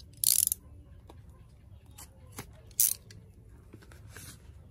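Cardboard nail stamping plate box being handled and opened: two short scratchy rustles, one just after the start and one about three seconds in, with light taps and clicks between.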